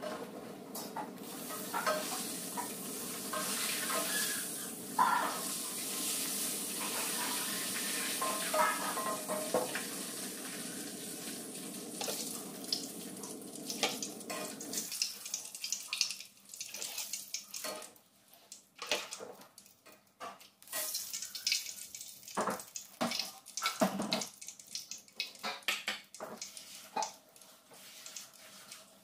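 Steady hiss of hot oil in an iron wok that stops suddenly about halfway, followed by a metal ladle scraping and knocking against the wok with light sizzling.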